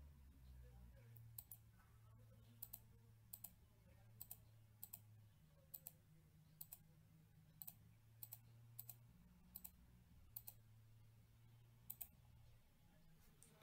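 Computer mouse button left-clicked about a dozen times, each a quick press-and-release double click, roughly one every second, over a faint low hum.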